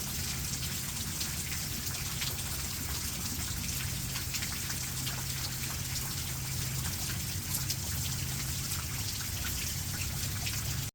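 Steady rain falling, with many individual drop hits heard through the hiss. It stops abruptly at the end.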